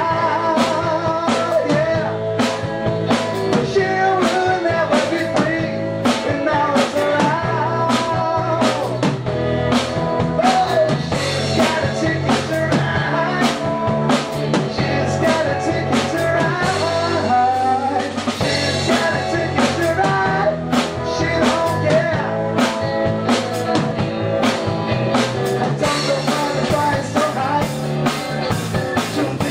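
Rock band playing: electric guitar and drum kit keeping a steady beat, with a man singing over them.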